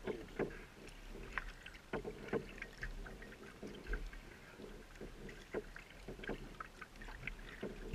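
Kayak paddle strokes on calm water: soft dips, splashes and drips at irregular intervals of about a second, over a low steady rumble.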